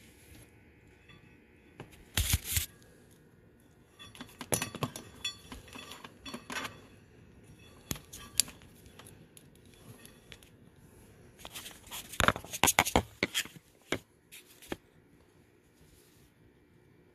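Scattered clicks, taps and scrapes of hands and a screwdriver working around a snowmobile carburetor's sensor, coming in short clusters with quiet gaps; the loudest clusters come about two seconds in and again around twelve to thirteen seconds.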